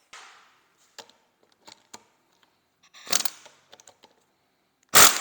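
Tools taking apart a seized alternator overrunning clutch pulley, metal on metal. There are light clicks and a short scrape, a louder knock about three seconds in, and two sharp metal blows near the end.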